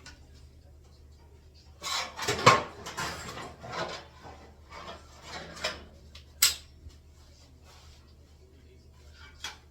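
Metal parts being handled: a burst of clattering and knocking about two seconds in, then a few single sharp knocks, the last near the end.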